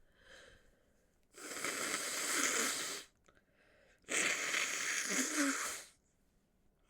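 Two long, forceful bursts of breath into a cloth handkerchief from a woman with a head cold, each lasting nearly two seconds, with a pause of about a second between them.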